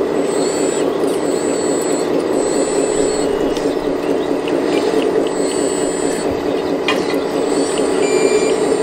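Steady mechanical drone of a radio-controlled model excavator's motor running, with faint high whines and beeps coming and going above it.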